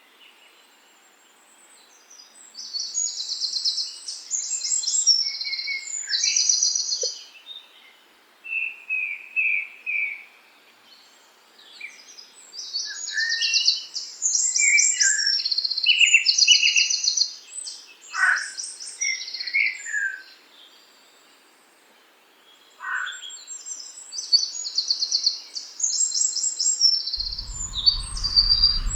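A songbird singing in three bouts of rapid, high trilled phrases mixed with lower whistled notes and short downward-sweeping calls, with pauses of a few seconds between bouts. A low rumble comes in near the end.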